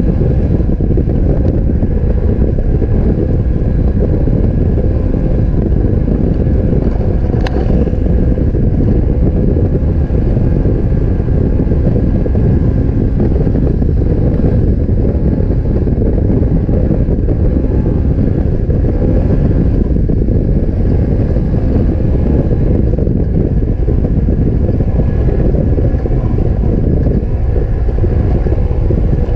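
Side-by-side UTV engine running steadily at speed over sand, heard on board with heavy wind rumble on the microphone. A single sharp click about seven seconds in.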